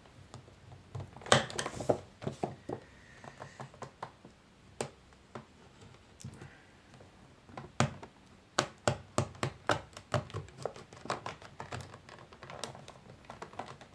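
Cardboard-and-plastic blister packaging being worked open: irregular sharp clicks and taps, with a loud one about a second in and a quick run of them in the second half.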